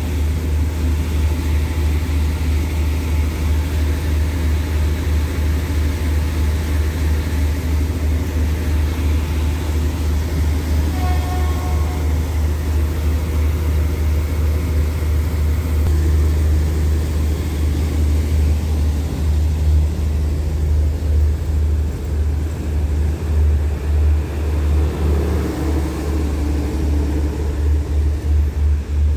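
Diesel passenger train running at a station platform, with a steady low engine rumble. A short pitched horn note sounds about 11 seconds in. In the last third the rumble turns uneven and pulsing as the train pulls away past.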